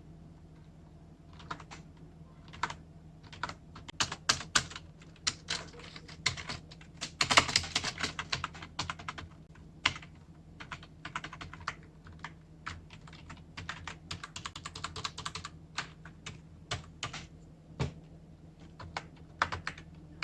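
Typing on a Genius KB-117 wired membrane keyboard: irregular key clicks, with a dense flurry of keystrokes about seven seconds in.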